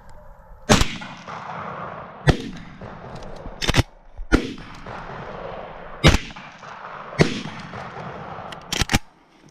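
A run of shotgun shots, about eight sharp reports spaced irregularly, some coming in quick pairs. The loudest ones ring out with a long echo that fades over about a second.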